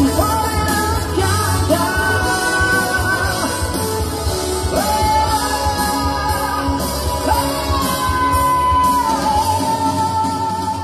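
Male singer belting a melody of long, held high notes into a handheld microphone, amplified through PA speakers over backing music with a steady drum beat.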